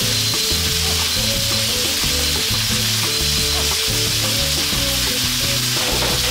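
Thin slices of meat sizzling steadily in oil in a black wok, over background music.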